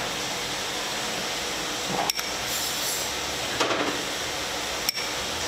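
Steady sizzling hiss of food frying in a pan on the gas stove, with two light clicks of a metal spoon against a dish about two and five seconds in.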